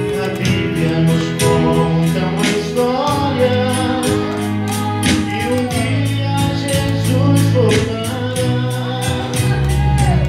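Live gospel music: a man singing to his own acoustic guitar, accompanied by an electronic keyboard, with a steady beat.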